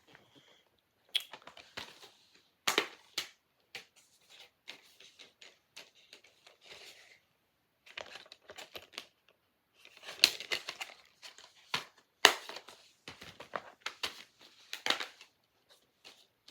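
Plastic DVD and Blu-ray cases being handled and moved about: irregular clicks and clacks mixed with crinkling rustles, busiest in the second half.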